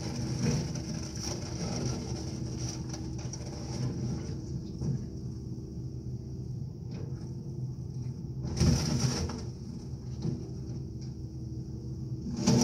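Excavator engine running steadily while its bucket breaks up an old fiberglass speedboat and demolition debris, with two loud crunching impacts, one about two-thirds of the way in and one near the end.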